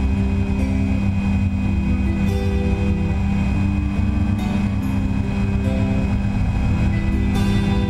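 Steady drone of a flexwing microlight trike's engine and propeller in level flight, with background music playing a melody of held notes over it.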